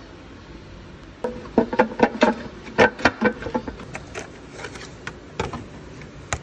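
Hand tools clinking and knocking on metal under the car: a quick run of sharp, slightly ringing knocks, then scattered single clicks.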